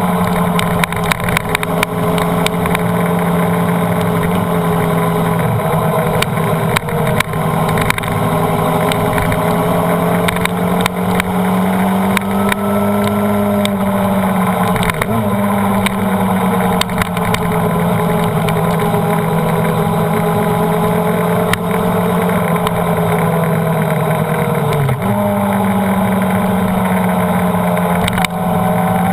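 Honda CBR929RR sportbike's inline-four engine running hard on track, mixed with wind noise over the onboard camera. The revs hold fairly steady, dipping and picking back up about halfway through and again near the end.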